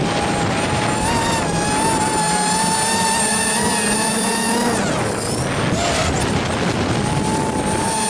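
ZMR250 racing quadcopter's four brushless motors and propellers whining in flight, the pitch wavering with throttle. About five seconds in the whine falls away as the throttle is eased, then comes back about a second later, with wind rushing over the onboard camera's microphone throughout.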